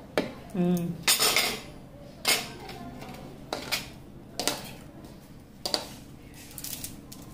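A spoon clinking and scraping against a bowl, several irregular strikes, while a mixture of powdered milk, sugar and ghee is stirred together.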